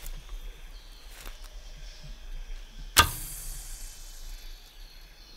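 A sharp snap about three seconds in as a line-carrying arrow is shot from a bow up into the tree canopy, followed by a fading hiss as it flies and pays out its line.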